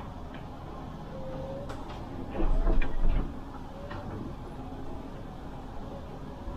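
Inside a Solaris Urbino 18 natural-gas articulated bus: steady running noise, with a louder jolt and rattle from about two and a half to three seconds in and a few short squeaks.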